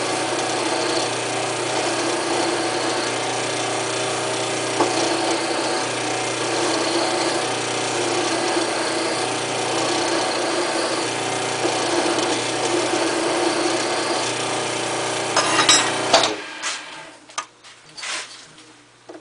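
Wood lathe running with a flat hand file scraping against spinning aluminum bar stock. The lathe stops about sixteen seconds in, followed by a few light clicks and knocks.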